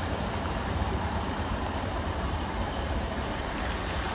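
Pair of Class 150 diesel multiple units running through the station, a steady even rumble.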